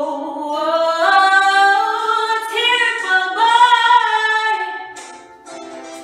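A woman singing a cappella, holding long notes in a run that climbs in pitch, loud and sustained, then dropping away about five seconds in. Quieter short notes follow near the end.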